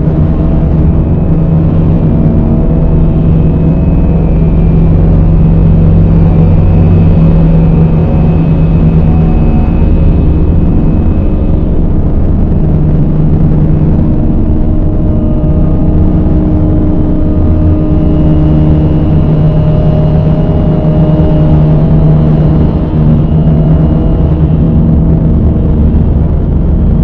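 Dark ambient drone music: a loud, dense low rumbling drone with long held tones that shift slowly, some fading out and others coming in over the span.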